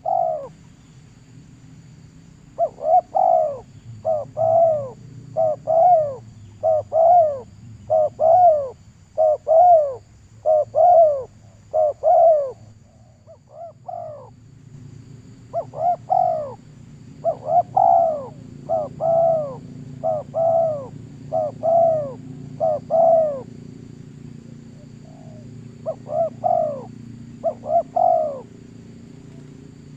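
A bird calling a fast series of mid-pitched notes that rise and fall, mostly in close pairs about one pair a second, in three bouts with short pauses between them.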